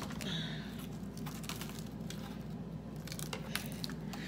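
Plastic-wrapped frozen food packages rustling and crinkling, with a few light knocks, as someone rummages in a freezer, over a steady low hum.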